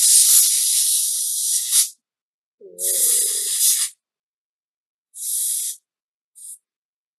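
Can of compressed-air duster spraying in four bursts, blowing solvent out of the pistol's fine channels during cleaning. The first burst lasts about three seconds and the later ones get shorter, the last very brief. A warbling whistle sounds under the second burst.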